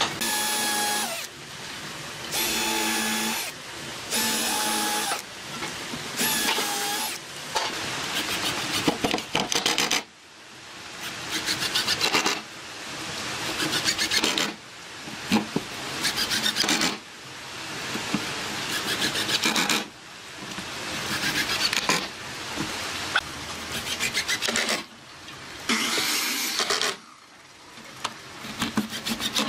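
Cordless Ozito drill-driver running in repeated bursts, drilling and driving screws into wood. Several short whirring runs come first, then longer runs that grow louder through each one.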